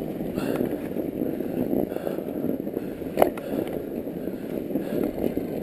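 Mountain bike tyres rolling and crunching through fresh, untracked trail snow, a steady grainy noise, with one sharp knock from the bike about three seconds in.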